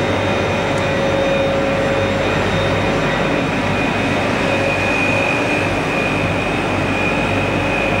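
Steady roar of boiler-room machinery, with a constant low hum and two steady whining tones over it.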